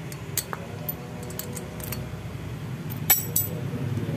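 Light metal clinks and ticks as the rocker-arm shaft and rocker arm are worked out of a Honda Grand cylinder head, a few scattered knocks with the sharpest about three seconds in. A steady low hum runs underneath.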